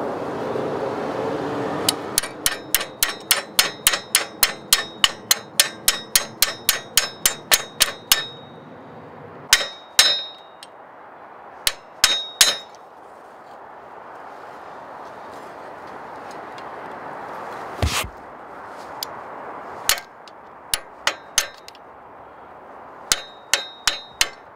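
Sharp metal-on-metal taps as a steel cross pin is driven into a Hi-Lift jack's running gear. A quick, even run of about three ringing taps a second lasts some six seconds, followed by scattered single and paired taps.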